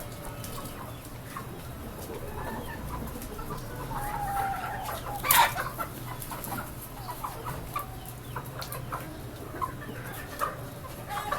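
A flock of desi chickens clucking, with short calls scattered throughout and a single loud squawk about five seconds in.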